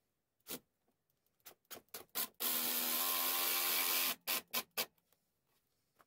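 Cordless impact driver running for about a second and a half as it drives a screw into a wooden trim strip, with a few sharp handling clicks before and after.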